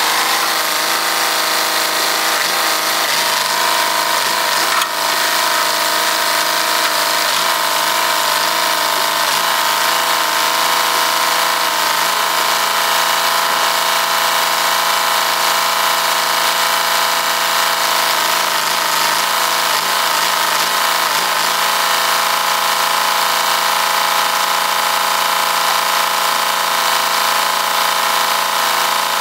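Loader tractor's engine running steadily at an even speed, close by.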